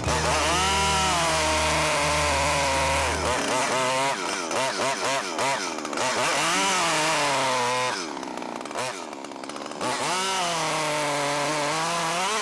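Stihl chainsaw running at high revs while cutting wood; its engine pitch keeps sagging and recovering as the chain loads up in the cut. About eight seconds in it drops lower and quieter for a couple of seconds, then picks back up.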